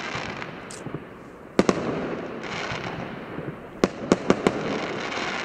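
Bluenight two-minute multi-shot fireworks cake firing aerial shells: sharp bangs as they burst, two close together about a second and a half in and four more in quick succession near four seconds, over a steady hiss and crackle.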